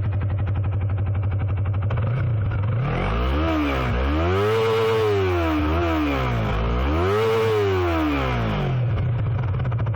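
Stock Yamaha YZF-R25's 250cc parallel-twin four-stroke engine idling, then revved up and back down twice with a short blip in between, before dropping back to a steady idle near the end.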